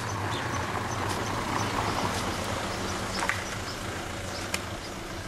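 Low motor-vehicle hum over steady outdoor noise, swelling over the first two seconds and slowly easing. A few isolated sharp taps come in the second half.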